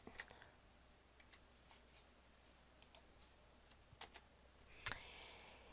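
Near silence with a few faint computer keyboard clicks, the loudest about five seconds in: the Ctrl and Home keys being pressed to jump to the top of a document.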